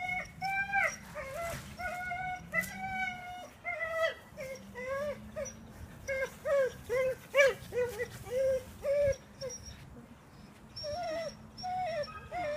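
Australian Shepherd whining and crying while playing tug: a long run of short, high, pitch-bending whines, with a brief pause about ten seconds in.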